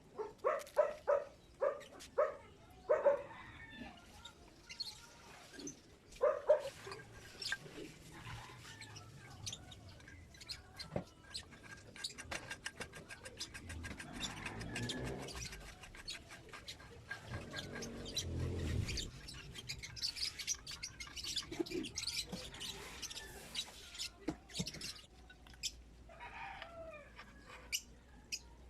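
Chickens clucking in short repeated calls, mixed with a run of fast clicks and a stretch of rushing noise in the middle.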